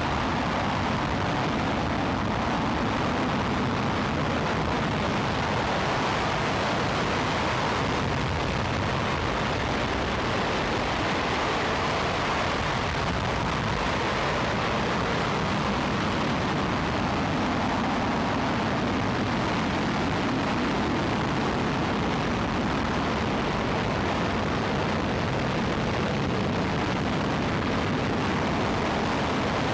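Space Shuttle Main Engine (RS-25) hydrogen-oxygen rocket engine firing on a test stand: a steady, unbroken rushing noise at an even level.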